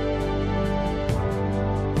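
Instrumental background music: sustained chords with light percussive hits.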